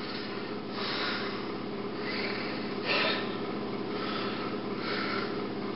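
A man breathing audibly close to the microphone, several noisy breaths about a second apart, over a steady low hum.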